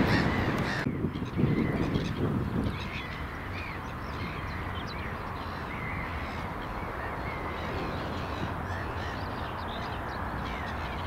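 Birds calling outdoors. Loud, harsh calls stop abruptly about a second in. After that come many short, faint chirps over a steady low rumble.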